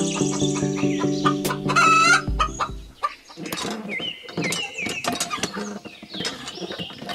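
Chickens clucking, over background music with steady held tones during the first few seconds.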